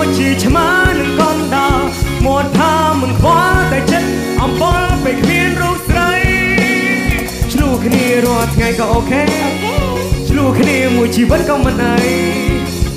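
Khmer pop duet song: sung vocals over a backing band with a steady beat.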